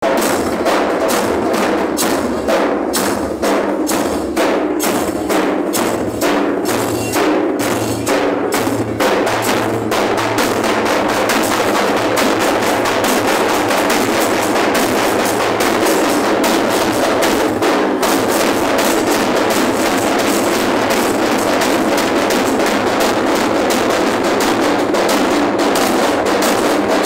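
A group of large double-headed barrel drums beaten with sticks in a driving rhythm. The strokes stand apart at first, then after about ten seconds they merge into a dense, continuous drumming.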